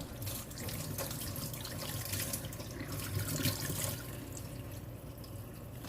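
Kitchen tap running, with water splashing over hands being rinsed under it. The splashing eases a little about four seconds in.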